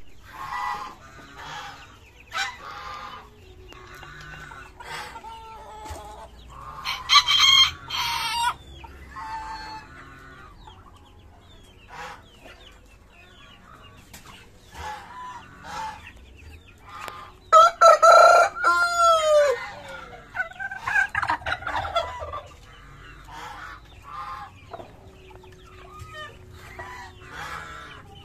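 Chickens clucking, with a rooster crowing loudly twice, about seven seconds in and again about eighteen seconds in.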